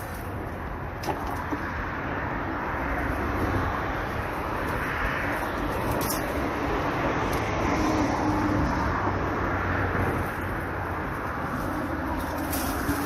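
Steady rumble like road traffic, growing louder toward the middle and easing off near the end, with a few brief sharp clicks.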